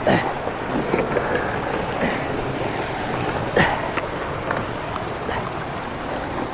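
Water sloshing and splashing around a sunken motorbike as it is dragged up out of the canal over the stone edge, with a sharp knock at the start and another about three and a half seconds in.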